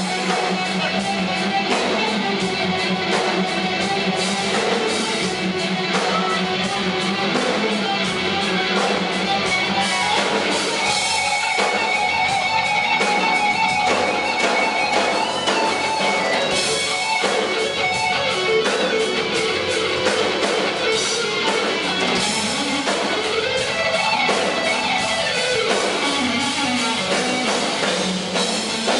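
Instrumental rock band playing live, with an electric guitar lead full of sliding, bending notes over the band.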